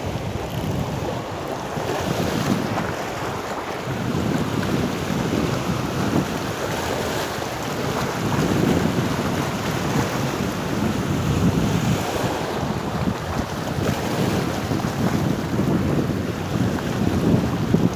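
Wind rumbling on the microphone over small sea waves washing across rocks at the shoreline, swelling and easing every few seconds.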